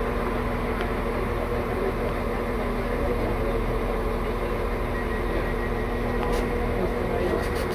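Diesel multiple-unit train standing at the platform with its engine idling: a steady, even hum.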